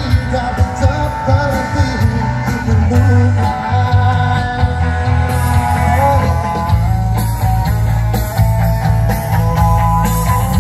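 Pop-rock music with singing and guitar, played through a large outdoor line-array PA system with four boxes per side, heard from about 100 metres across an open field. The bass is heavy, with a steady beat under the melody.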